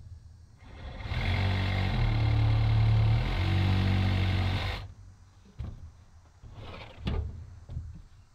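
Cordless power tool, a red hand-held ratchet or impact type, run hard for about four seconds, its motor pitch stepping up and down as it spins a bolt out of the truck's radiator support. A few metal knocks and clunks follow as the loosened radiator is handled.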